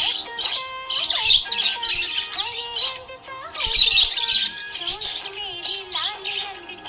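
Budgerigars chirping and squawking in quick, busy bursts over background music with held notes.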